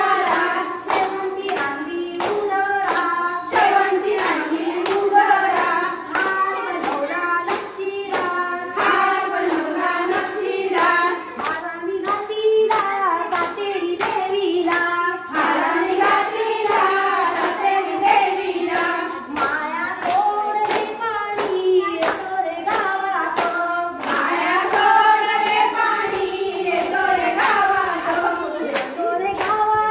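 Women singing a fugdi folk song, with rhythmic handclaps keeping a steady beat.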